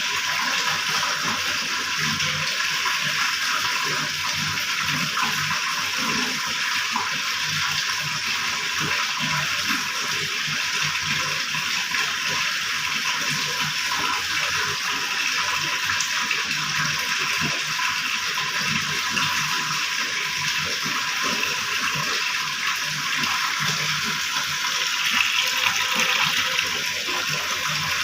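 Water rushing steadily, a continuous hiss of flowing water, swelling a little near the end.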